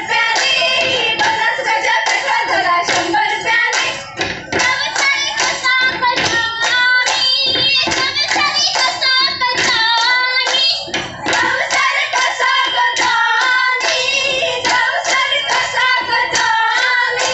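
A group of women singing a Goan fugdi folk song together, keeping time with steady, rhythmic hand claps.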